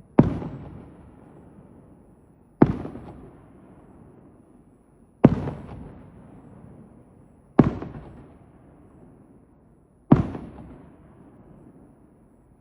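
Aerial firework shells bursting: five loud booms about two and a half seconds apart, each followed by a fading echo.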